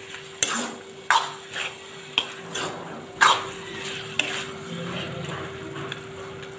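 Spatula scraping and knocking in a pan as fried fish head is broken up and stirred into frying taro greens, about eight strokes in the first four seconds, over a light sizzle.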